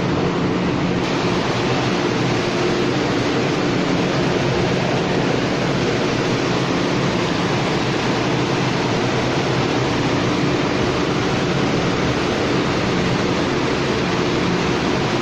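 Industrial machine running steadily and loudly: an even mechanical noise with a low hum underneath and no change in speed.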